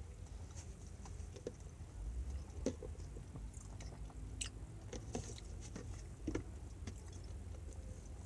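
A person chewing a glazed donut close to the microphone, with irregular wet mouth clicks and smacks over a low hum.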